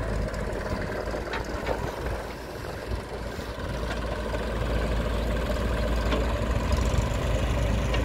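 Diesel engines running: a JCB backhoe loader idling close by while farm tractors drive past, the engine noise getting louder in the second half.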